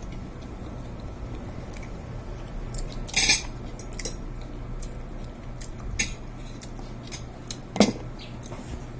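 Cutlery and dishes clinking during a meal: scattered light clicks and knocks, the loudest about three seconds in and just before the end, over a low steady hum.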